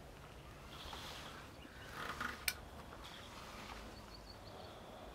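A small glass jar's screw cap twisted off and set down on paving: a brief scraping rustle, then a single sharp click about two and a half seconds in, over faint bird chirps.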